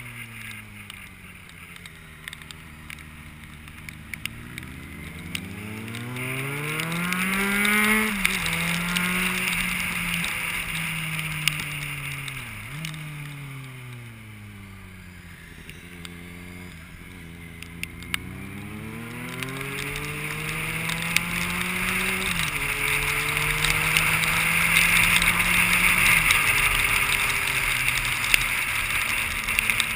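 Vehicle engine under load, its pitch climbing and falling again and again, with sudden drops of pitch a few times as gears change. Wind and road noise swell with the speed.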